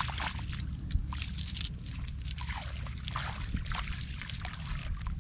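Bare feet wading through shallow muddy floodwater, a quick irregular run of small splashes and sloshes, over a steady low rumble.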